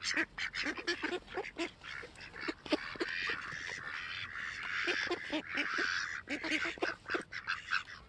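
Flock of ducks quacking: many short, overlapping quacks throughout, crowding together into a continuous chatter in the middle.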